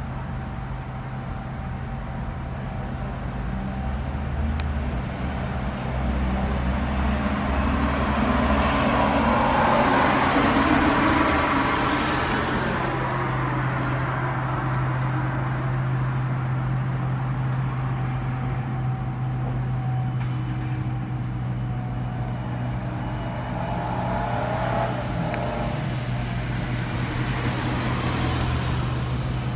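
Road traffic: a car passes about ten seconds in, swelling up and fading away, and another approaches near the end, over a steady low hum.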